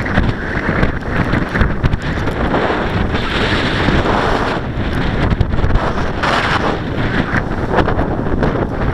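Strong, gusty wind buffeting the microphone: a continuous rumbling rush that swells in louder gusts a few seconds in and again later.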